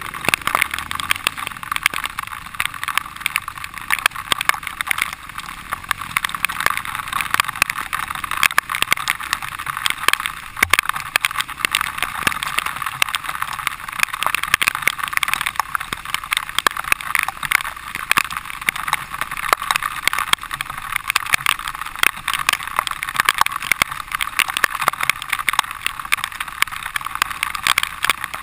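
Dirt bike ridden over a rough, muddy trail, heard from a helmet-mounted camera: a steady engine-and-wind noise with constant rattling clicks.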